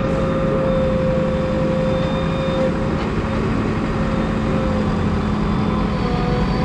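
JCB 3DX backhoe loader's diesel engine running steadily, with a steady whine over the low engine rumble.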